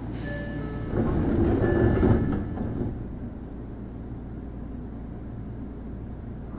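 Sound inside a Tokyo Metro 01 series subway car: a steady low hum, a few brief high tones near the start, and a louder rush of noise between about one and three seconds in before it settles back to the hum.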